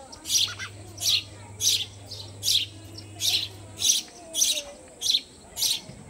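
House sparrows chirping at a nest box: a steady, evenly spaced run of sharp chirps, about three every two seconds, as gaping nestlings beg for food from the adult.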